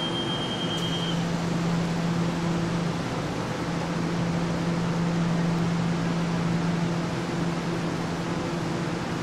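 Steady hum and air rush of a stationary Taiwan Railway EMU700-series electric commuter train with its air conditioning running, heard on an underground platform. A high steady door-warning beep sounds at the start and stops about a second in as the doors close.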